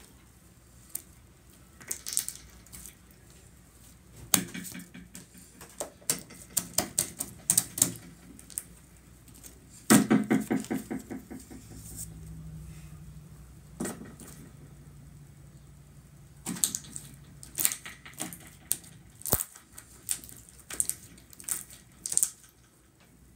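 Thick, glossy slime being kneaded, stretched and poked by hand, making clusters of sticky clicks and pops as trapped air is squeezed out, with a loud rapid run of pops about ten seconds in.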